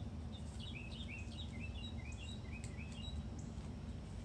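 Birds chirping in a quick series of short, high notes over a steady low background rumble.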